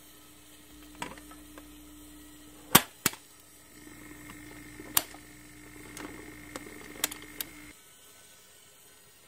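Record player's turntable motor humming steadily while the lever linkage of its automatic mechanism clicks and clacks several times, the loudest clacks about three and five seconds in. The hum and clicking stop abruptly near the end.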